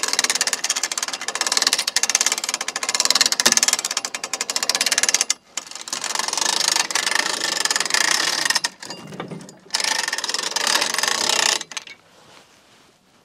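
Portable bandsaw mill's powered log-handling gear running in stop-start bursts, a fast mechanical rattle, as a large log is loaded and turned on the mill bed. It stops about twelve seconds in.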